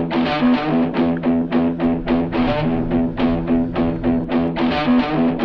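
Background music: a rhythmic guitar intro, repeated strummed or plucked notes at about four strokes a second, before the vocals come in.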